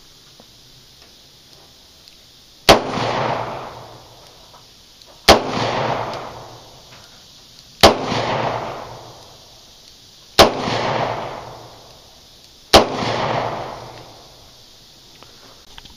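Five shots from a Ruger LCR snub-nosed revolver firing .38 Special 135-grain FMJ rounds, about two and a half seconds apart. Each sharp report is followed by a long echo that dies away over a second or so.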